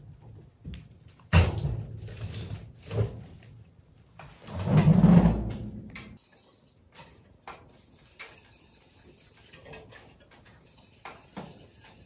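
Firewood being loaded into a wood cookstove's firebox: a heavy knock a little over a second in and another near three seconds, a loud rumbling scrape as wood is shoved in around four to six seconds, then the stove door shut and light metal clicks from the stove front.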